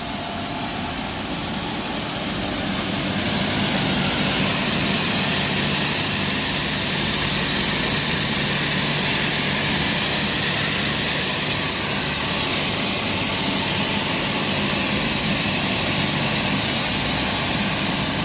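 Tornado ASZ-3000 automatic rug washing machine running: a steady, loud rushing hiss over a low machine hum, swelling over the first few seconds and then holding even.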